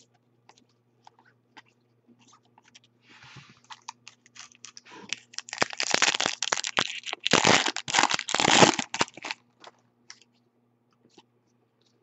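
Foil wrapper of a Bowman Chrome Jumbo card pack being torn open and crumpled by hand: a loud crackling, crinkling run from about five seconds in that lasts some four seconds. Before it come only faint light taps of cards being handled.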